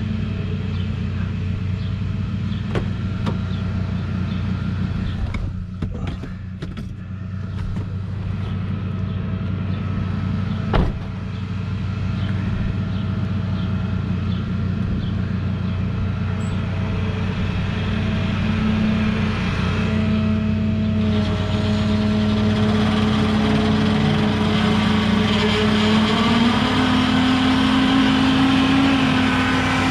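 A motor vehicle's engine running steadily, its pitch stepping up a little about two-thirds of the way through and again near the end. There is one sharp knock about a third of the way in.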